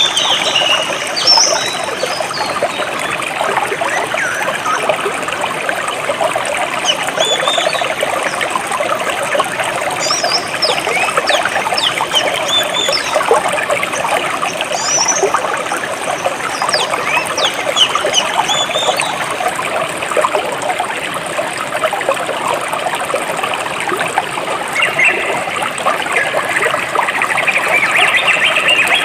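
Jungle stream trickling and flowing steadily over rocks, with birds chirping on and off above it and a busier burst of chirping near the end.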